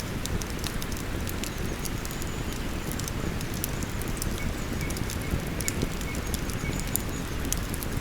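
Wood campfire crackling, with frequent sharp pops and snaps at irregular intervals, over the steady rushing flow of a river.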